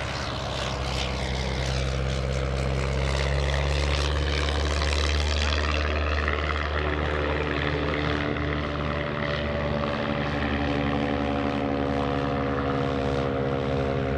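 Light piston-engine propeller aircraft flying low past with a steady engine drone: first a Steen Skybolt biplane, then, after a change in the sound about six seconds in, a Just Aircraft Highlander.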